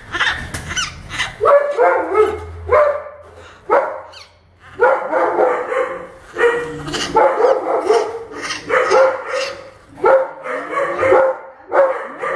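Baby howler monkey giving loud repeated distress calls, about one a second with a short lull around four seconds in, protesting at being handled.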